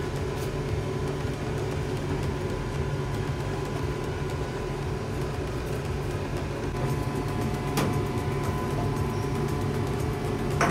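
Steady low mechanical hum of commercial kitchen equipment, with a few faint steady tones over it, starting abruptly. A single sharp click sounds about eight seconds in.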